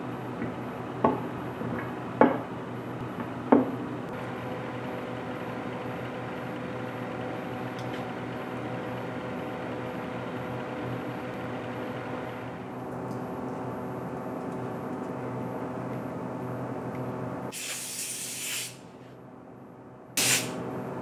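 Compressed-air blow gun hissing in two blasts near the end, the first about a second long, the second shorter, over a steady workshop hum. Early on, three sharp knocks as the solid wooden table legs are handled and set on the oak tabletop.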